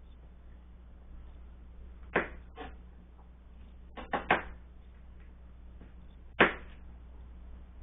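Kitchen knife knocking against a plastic cutting board while cutting garlic cloves: about six sharp, irregular knocks, three of them in quick succession midway, over a low steady hum.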